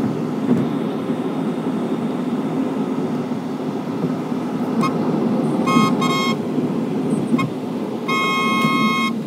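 Road traffic running steadily, with vehicle horns: a few short toots about five to six seconds in and a longer honk near the end.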